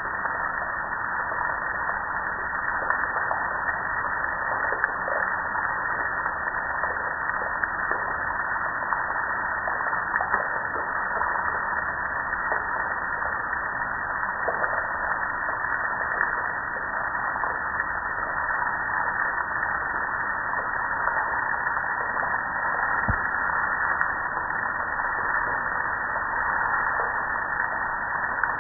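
Water jet spraying onto a propane gas grill and streaming off it onto concrete, a steady hiss.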